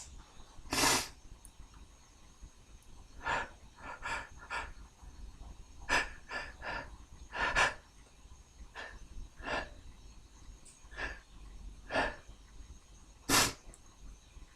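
A man sneezing from a tickle set off by beer: a loud sneeze about a second in and another near the end, with about a dozen shorter, softer bursts of breath between them.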